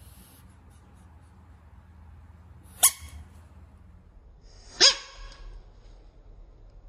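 A frog gives two short, sharp squawks about two seconds apart, a distress call from being disturbed; the second is slightly longer.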